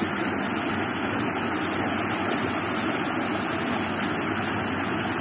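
Small waterfall of river water pouring over a low rock weir into a shallow pool, a steady rushing with no change.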